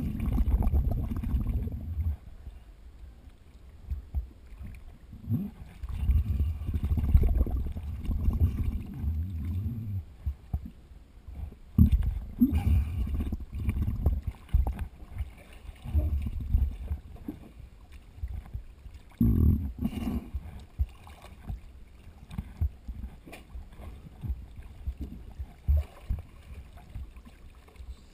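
Seawater sloshing and gurgling against a camera housing held at the surface, in irregular low surges with scattered knocks.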